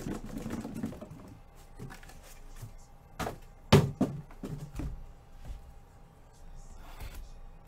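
Sharp knocks and thuds from packaging being handled and set down on a table, the loudest two close together a little over three seconds in, with a few softer taps after.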